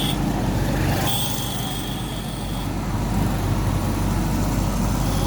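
Taxi running on the road: a steady low engine and road rumble, with a thin high tone from about one second in to near the middle.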